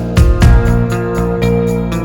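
Background music with a steady beat and plucked-string and keyboard-like tones.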